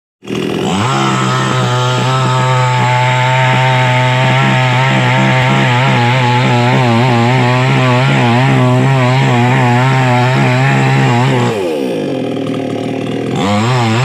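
iBELL chainsaw cutting into a tree trunk at high revs, its pitch wavering as the chain bites into the wood. About eleven and a half seconds in it drops back toward idle, then revs up again near the end.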